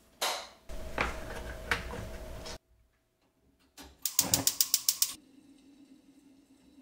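Gas stove igniter clicking rapidly, about ten clicks in a second, then the burner catching and running with a steady low sound. Before that, about two seconds of rough, steady noise.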